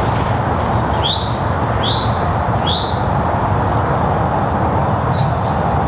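A bird chirps three times, short upswept notes about a second apart, starting about a second in, over a steady low rushing background noise.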